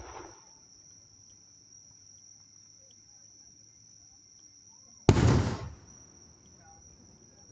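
Fireworks shells bursting: a sharp bang right at the start and a louder, longer bang about five seconds in that dies away within a second. Insects trill steadily at a high pitch throughout.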